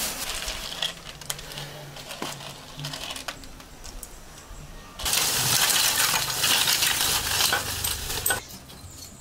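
Hard little pieces clinking in metal: dry beans handled in a stainless steel bowl, then lump charcoal poured from a plastic bag into a metal charcoal stove, a loud clattering rush with bag rustle from about five seconds in until shortly before the end.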